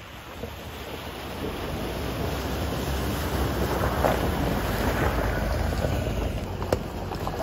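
Toyota Hilux pickup truck fording a shallow rocky river: a low engine rumble and water splashing off the tyres, building as it approaches and loudest about four seconds in, then its tyres on the gravel as it passes close, with a sharp click near the end.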